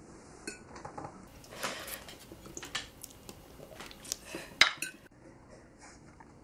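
Forks clinking and scraping on china dinner plates during a meal, a run of scattered sharp clinks with the loudest a little past four and a half seconds in.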